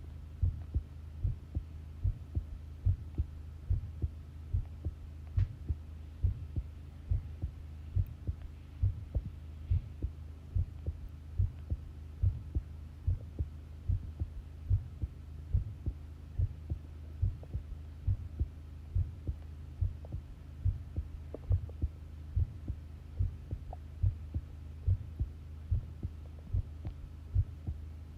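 Human heartbeat: a steady run of low lub-dub thumps, a little faster than one beat a second, over a steady low hum.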